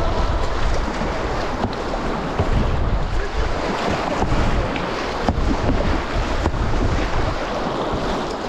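Rushing whitewater of a river rapid heard from a paddler's boat, with wind rumbling on the microphone and a few sharp splashes.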